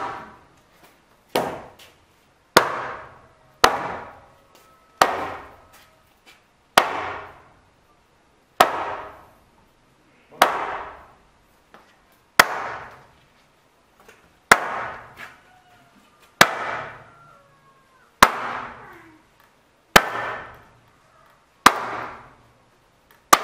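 Mallet blows knocking timber beams into the joints of a wooden house frame, about one strike every two seconds. Each blow is a sharp knock with a short ringing tail.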